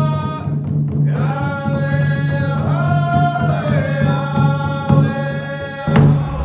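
Music: long held melodic notes, sung or played, that slide between pitches over a steady low drum. A sharp click about six seconds in.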